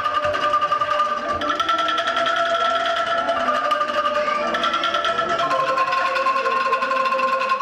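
Children's ensemble of bamboo angklung playing a slow melody. Each note is a rapid rattling tremolo, held for a second or so before the next note takes over.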